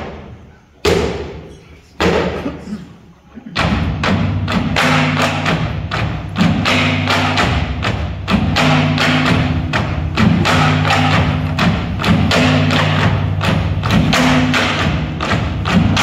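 Singkil dance music: sharp knocks of bamboo poles clapped together, a few at first, then from about three and a half seconds in a kulintang gong ensemble joins with steady ringing gong tones under a fast, even beat of strikes.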